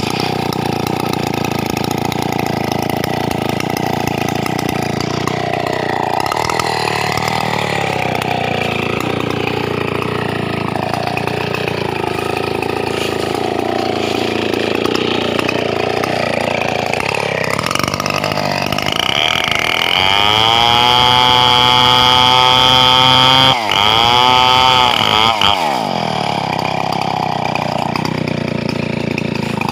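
Stihl 070 two-stroke chainsaw idling unevenly, then revved to full throttle about two-thirds of the way in, with a brief sharp dip and a second rev before it drops back to idle.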